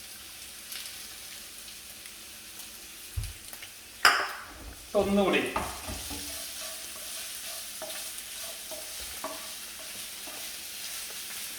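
Green beans frying in olive oil and garlic paste in a pan, with a steady sizzle and the scrape and tick of stirring. There is one sharp clink about four seconds in.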